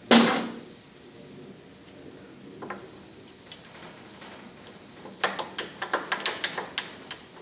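Metal parts of a South Bend 9-inch lathe's lead-screw reverse bracket being fitted by hand: a sharp metallic clank right at the start that rings briefly, a single click a couple of seconds later, then a quick run of light metallic clicks and taps near the end as its small steel gears are handled into place.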